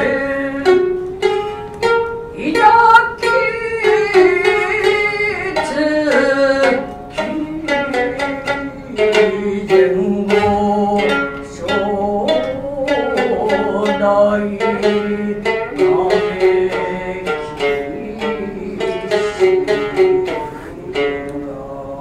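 Gidayū-bushi accompaniment on the futozao shamisen, a run of sharp plucked strokes, with the tayū's long, wavering chanted vowels held over it.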